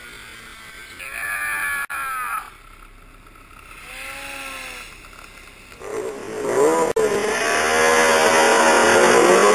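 Snowmobile engines revving: two short bursts whose pitch rises and then falls, and from about six seconds in a much louder engine revving hard with wavering pitch.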